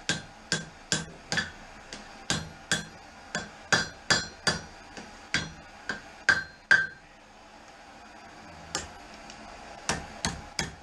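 Blacksmith's hammer striking hot steel on an anvil, about two to three blows a second for nearly seven seconds, each with a short metallic ring, then a pause, a single blow, and a quick cluster of blows near the end. The blows are bending a curve into a half-moon knife blade, which the smith judges not hot enough to bend.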